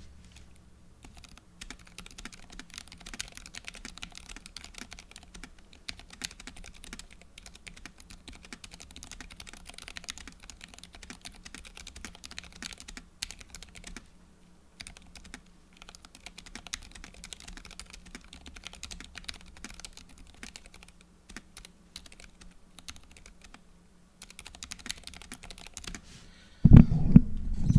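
Fast, continuous typing on a mechanical keyboard fitted with silent linear switches (Roselios with modified 40 g springs), a soft, muffled clatter with brief pauses, ending in speech near the end.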